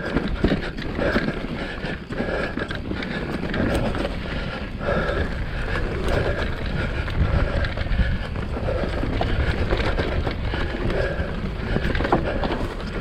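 Mountain bike riding fast down a dirt trail: tyres rumbling over the ground, the bike rattling, and wind buffeting the microphone.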